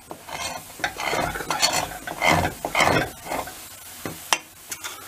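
Steel spoon scraping the browned crust of mashed potato stuck to the bottom of a stainless steel pot, in a run of rasping strokes, with a few sharp metal-on-metal clicks near the end.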